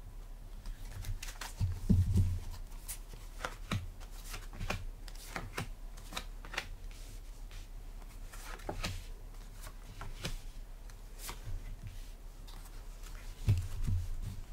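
Tarot cards being shuffled and then dealt one at a time into a spread: a run of quick papery snaps and slides. There is a low thump about two seconds in and another near the end.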